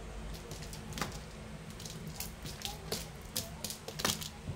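A cat's paws and claws scrabbling and tapping on a hard floor as it pounces and bats at a string toy: a run of quick, sharp clicks and scratches, the loudest about a second in and near the end.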